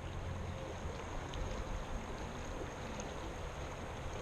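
Steady rush of fast-flowing river water, with a low rumble underneath and a few faint ticks.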